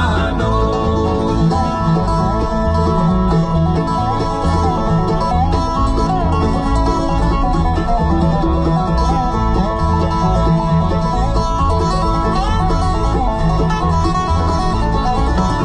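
Country gospel song playing on the car radio, an instrumental break with plucked banjo and guitar over a steady bass beat.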